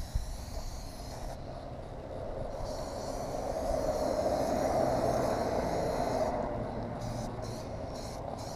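Aerosol can of Plastidip rubber coating spraying onto a motorcycle plastic panel: a steady hissing rush that swells in the middle, breaks off briefly twice, and sputters on and off in short bursts near the end.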